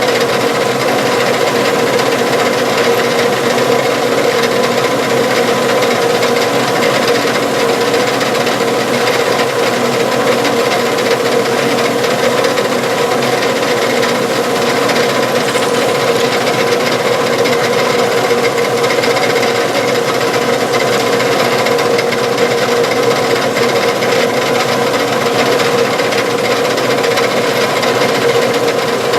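Drill bit boring a lengthwise hole through a small metal hinge piece, a little loud, running steadily with a constant tone over a grinding, rasping noise.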